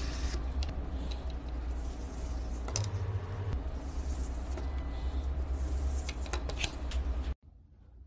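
Wire loop sculpting tool scraping grooves into dry green floral foam: several strokes of scratchy hiss with small crackles, over a low steady rumble. The sound cuts off suddenly near the end.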